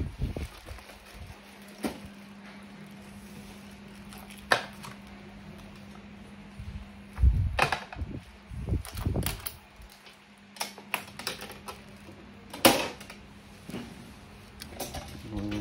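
Objects being handled: scattered sharp clicks and knocks and a few dull thumps, the loudest click a little before the end, over a faint steady hum.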